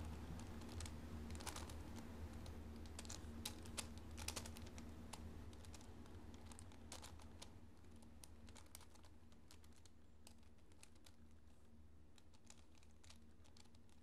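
Plastic 4x4 Rubik's cube layers being turned by hand through the edge-parity algorithm: faint, irregular clicks and clacks of the layers, coming thick and fast at first and thinning out in the last few seconds.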